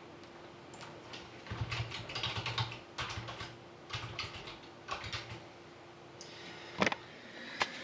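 Typing on a computer keyboard in several quick bursts, as names are entered into a randomizer. Near the end come two louder single clicks.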